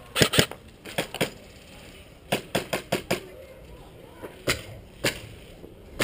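Airsoft guns firing single shots, a dozen or so sharp cracks in an irregular string, several coming in quick pairs and runs.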